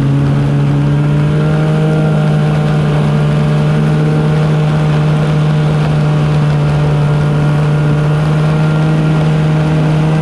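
Arctic Cat snowmobile engine running steadily under way at cruising speed, its pitch edging up slightly about a second in and then holding.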